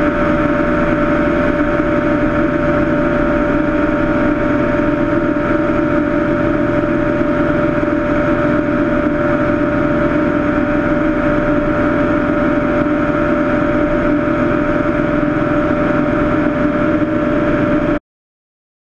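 Cessna 162 Skycatcher's four-cylinder Continental O-200 engine and propeller droning steadily in flight; the sound cuts off suddenly near the end.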